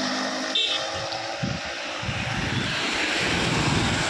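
Riding in an open-sided auto-rickshaw: a steady rush of wind and road noise, with the vehicle's engine running underneath.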